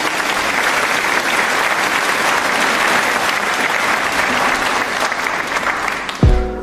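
Steady applause, a dense crackle of many hands clapping. Near the end it gives way to a deep thump as music begins.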